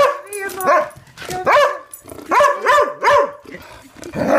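Black-and-tan coonhound barking close up: a string of about six short barks that rise sharply in pitch.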